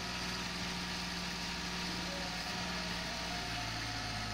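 Suzuki F8B three-cylinder carburetted engine of a Maruti 800 / Suzuki Mehran idling steadily, held at a raised idle of about 1300 rpm while the carburettor's air-fuel mixture is set.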